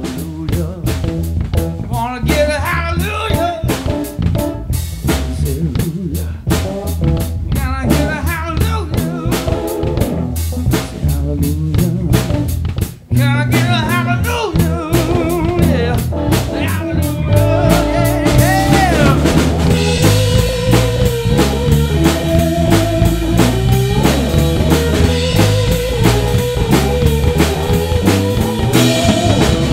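Blues band playing without vocals: a drum kit with snare rimshots and bass drum under a guitar line with bent notes. The band cuts out for a split second a little before halfway, then comes back in fuller, with cymbals washing over it.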